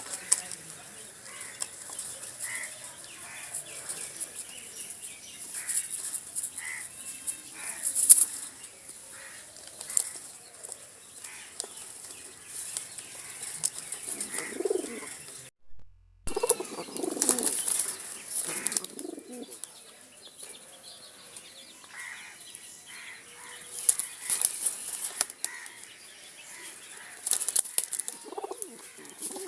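Pigeons fluttering and shuffling their wings, with short rustles, and now and then a low cooing call from a male pigeon. The sound cuts out for a moment about halfway through.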